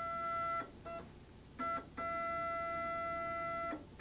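STEPCRAFT CNC stepper motors whining at one steady pitch in start-stop runs as the Z axis is jogged toward the tool holder: a short run at first, two brief blips, then a longer run of nearly two seconds that stops just before the end.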